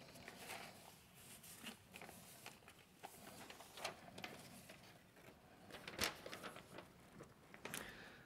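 Near silence: lecture-hall room tone with faint scattered clicks and rustles, one slightly stronger click about six seconds in.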